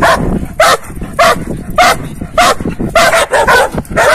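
Dogs barking at each other through a chain-link fence, a rapid run of loud barks at roughly two a second, some coming in quick pairs.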